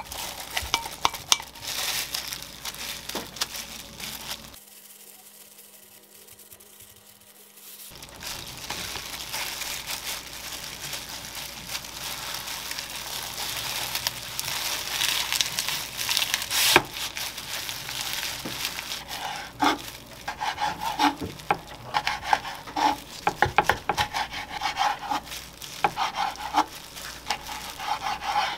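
A spoon scraping filling out of a glass bowl, then the crinkling rustle of plastic food gloves and dried laver as a kimbap is rolled by hand. In the last third comes a run of sharp knocks, a knife slicing through the roll onto a wooden cutting board.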